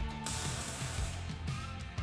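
Background music with a steady beat and bass line, with a bright hiss over it for about a second.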